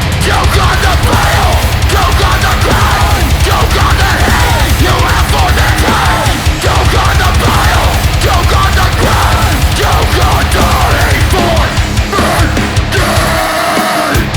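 Heavy metal band playing loud and aggressive: distorted electric guitars and bass over dense, fast drumming.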